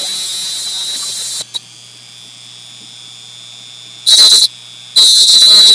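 Handheld rotary tool with a cut-off wheel spinning with a steady high whine, grinding through a thin wire control rod. A lighter grinding stops about a second and a half in; then the wheel bites hard into the wire twice, briefly about four seconds in and again from about five seconds in, loud harsh grinding each time.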